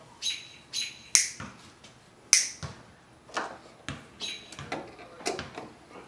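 Short squeaks and clicks of wires being worked into the wiring terminals of a LiftMaster garage door opener, with two sharp, louder snapping clicks about a second and two seconds in.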